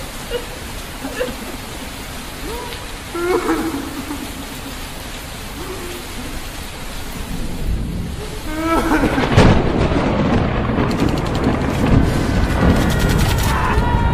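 Produced soundscape of steady rain-like hiss with a few faint, brief voice-like fragments. About nine seconds in, a loud deep rumbling sets in and continues. A steady high tone comes in near the end.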